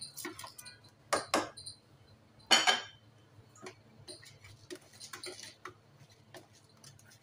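Kitchenware clinking and knocking as soaked rice is tipped from a container into a pan of boiling water. Sharp knocks come in the first second and a half, a louder clatter about two and a half seconds in, then scattered light ticks.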